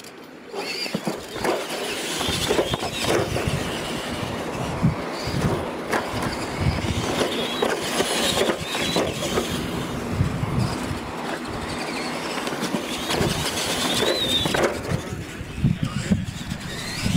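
Radio-controlled monster trucks racing across a dirt course: their motors and gears whine, rising and falling, with repeated knocks and thumps as they bounce along. The sound starts about half a second in.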